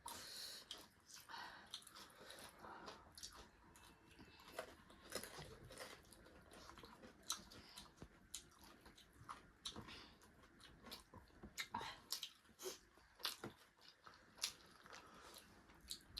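Faint chewing and crunching of food: many short, irregular crunches and mouth clicks.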